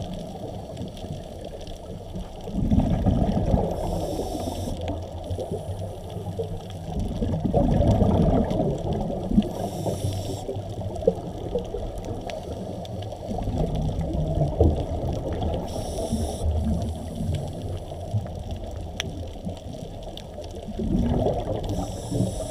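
Muffled underwater water noise picked up by a camera moving over a coral reef, swelling in surges every five or six seconds, with a few sharp clicks.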